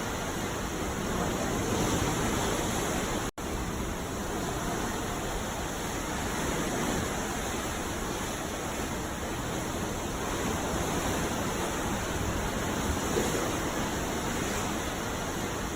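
Ocean surf at night: a steady rush of breaking waves, broken by a momentary dropout about three and a half seconds in.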